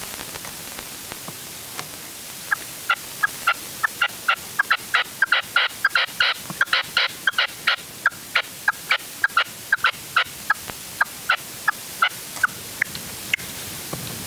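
Red-legged partridge calling: a long series of short, sharp call notes that speeds up and crowds together in the middle, then slows and thins out toward the end.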